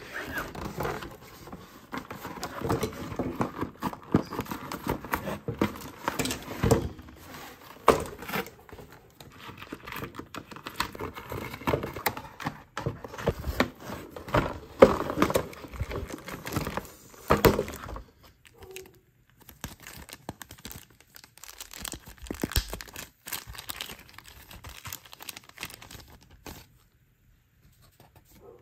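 Cardboard and plastic toy packaging being handled: crinkling, tearing, and small clicks and knocks as plastic toy pieces are worked loose from a cardboard backing. It is busiest for the first two-thirds, then sparser and quieter, stopping shortly before the end.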